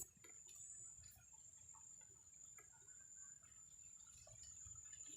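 Near silence: a faint, steady high-pitched whine over a low rumble, with a few soft ticks.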